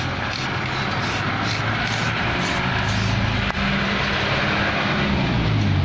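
Aerosol spray can of rubber paint hissing in several short bursts over the first two to three seconds, over a steady low drone.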